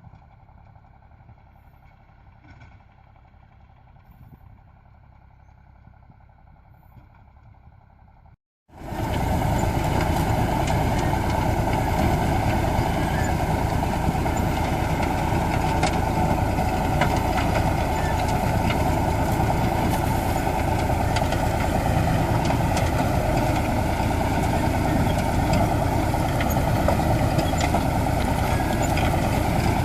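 Tractor engine running steadily under load while it pulls a ridge-forming and plastic-mulch-laying implement. The sound starts abruptly about a third of the way in, after a faint, quiet opening.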